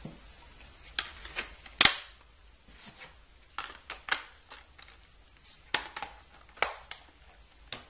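Sharp plastic and metal clicks of a Blu-ray SteelBook being handled: the disc pressed onto its clear plastic hub, and the metal case snapped shut and set down on an acrylic stand. The clicks come in scattered ones and twos, with the loudest snap a little under two seconds in.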